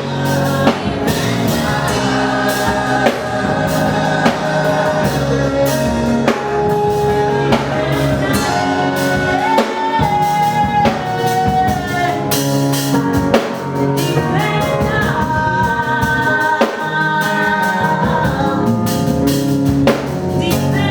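Gospel song with singing over a drum kit and other instruments, the voices holding and sliding between long notes.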